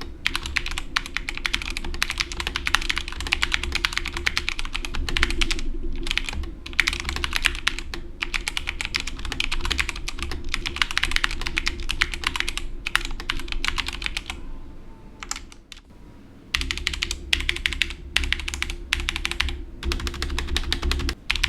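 Tecware Phantom mechanical keyboard with factory-lubed Outemu Red linear switches being typed on quickly in runs of rapid key clacks. There are brief pauses, and a softer, sparser stretch about two-thirds of the way through.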